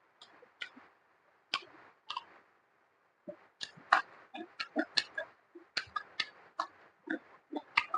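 Close-miked eating sounds of a person chewing spicy chicken feet: irregular wet clicks and smacks of mouth and lips, a few at first, then several a second from about three seconds in.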